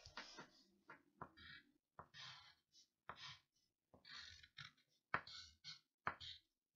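Faint pencil scratching on paper in a string of short strokes, one or two a second, as the Chinese character 我 is written out.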